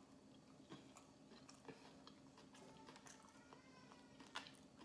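A person chewing a mouthful of food, faintly, with small wet clicks throughout and one sharper click near the end.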